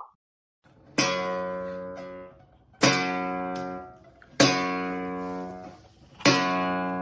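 A guitar strummed four times, one chord at a time, each left to ring out and fade before the next.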